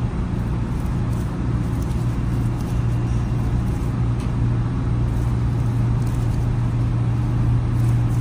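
Steady low mechanical drone, loud and unchanging, with a few faint clicks over it.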